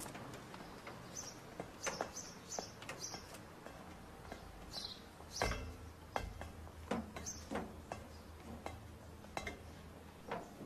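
Film soundtrack of children clambering up a ladder onto a metal fire escape: scattered light knocks and clinks, with a few short high chirps.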